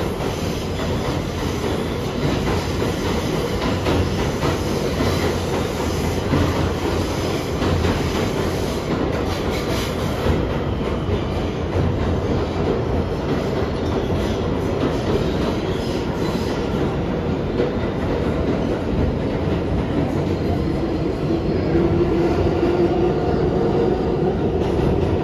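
R211A subway car running in the tunnel, heard from inside the car: a steady rolling rumble of wheels on rail. A whine comes in over the last few seconds as the train reaches a station.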